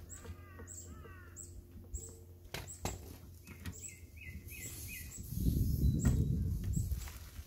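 Small birds chirping: a quick run of falling notes at the start, then a series of short chirps in the middle, with scattered sharp clicks. A low rumble, the loudest sound, swells for about two seconds near the end.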